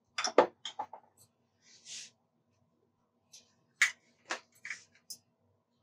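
Light clicks and taps from spice containers being handled: a cluster near the start and a few more about four seconds in, with a brief soft hiss about two seconds in.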